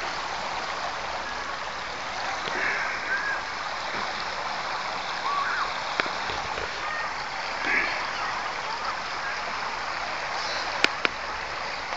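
Steady rushing outdoor noise with a few faint distant voices, and a sharp click near the end.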